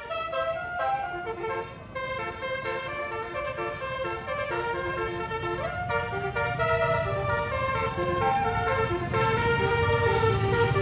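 Bus telolet horn, a multi-trumpet air horn, playing a melody of quick stepped notes. The bus's engine rumble grows louder in the second half as it draws closer.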